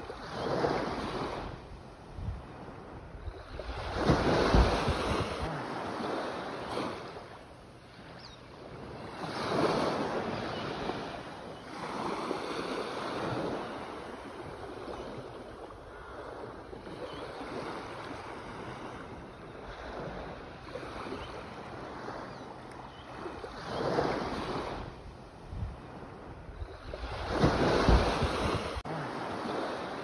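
Ocean surf: waves breaking and washing in, swelling and fading every few seconds, with the loudest breakers about four seconds in and near the end.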